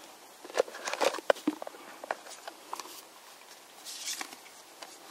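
A plastic geocache container being opened and its contents handled: irregular clicks and knocks, with a short rustle about four seconds in.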